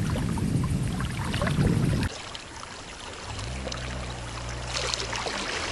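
Low rumble of wind buffeting the microphone for about two seconds, which cuts off suddenly. Then a steady low engine hum comes in for about two seconds, and water trickling rises near the end.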